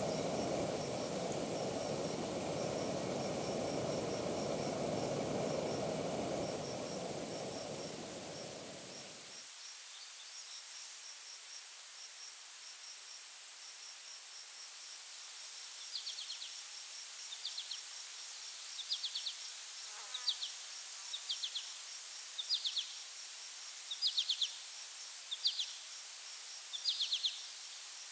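Insects in the evening bush: a steady high trill and a cricket's even chirping, joined from about sixteen seconds in by a louder chirping call that repeats about once a second. Under them, a steady low rushing noise cuts off suddenly about nine seconds in.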